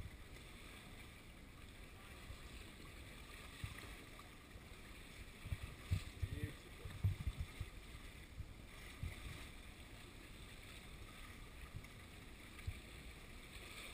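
Low, gusty rumble of wind and sea on the microphone, with irregular thumps that are strongest about halfway through, and a faint distant voice briefly around the middle.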